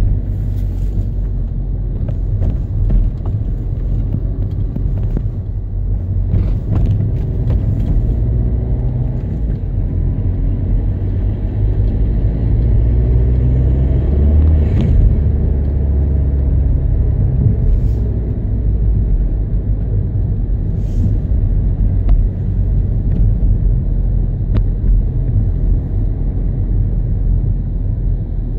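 Opel ecoFLEX car engine running, heard inside the cabin as a steady low rumble. The revs are near idle at first, around 2000 rpm and a little louder midway, and back near idle by the end.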